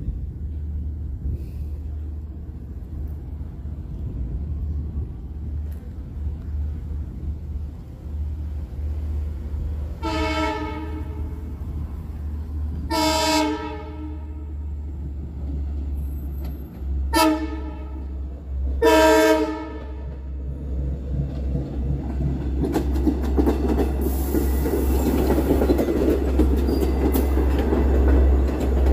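Horn of a Long Island Rail Road C3 bilevel cab car sounding the grade-crossing signal, two long blasts, a short one and a long one, as the train approaches. After the horn the train passes close by, its rumble growing louder with wheel clicks over the rail joints.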